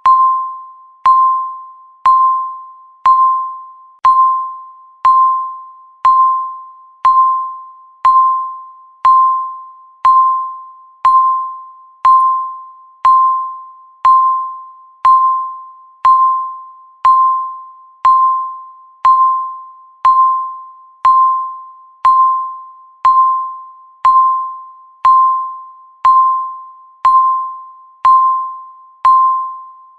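Countdown timer beep: a single clear electronic tone sounding once every second, each one starting sharply and fading away before the next, one beep for each second left.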